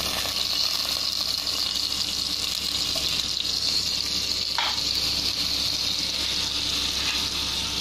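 Butter melting and sizzling in a hot, oiled frying pan, a steady hiss, with one faint short tick about four and a half seconds in.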